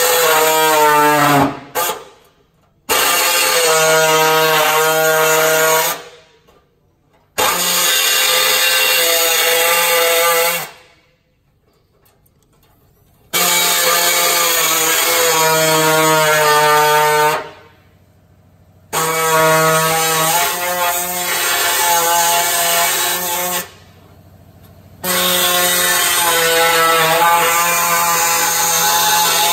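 Pneumatic cutting tool working the sheet metal of a Ford Ranger PX's front guard, running in six spells of three to four seconds with short pauses between them. Each spell is a steady pitched whine with many overtones.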